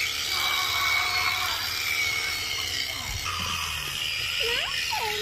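Electric sheep shears running steadily with a constant motor whine as the fleece is clipped off a sheep.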